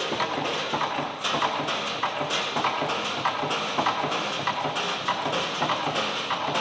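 Automatic steel wire nail making machines running, a steady fast metallic clatter of repeated strokes with a heavier surge about once a second.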